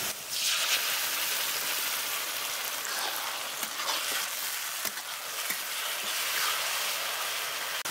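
Onions and tomato puree frying in hot mustard oil in a kadhai: a sharp flare of sizzling right at the start as the puree hits the oil, then a steady sizzle with a few faint clicks of stirring.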